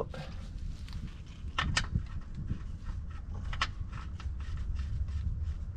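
Plastic fluid bottle being squeezed and handled while filling a transfer case with ATF: a few sharp clicks and faint taps over a steady low rumble.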